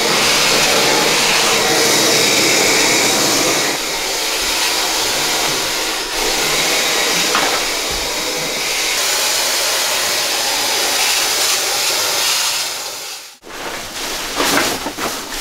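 Chemical sprayer spraying disinfectant with a loud, steady hiss that cuts off suddenly about 13 seconds in. After it stops, plastic garbage bags rustle and knock as they are handled.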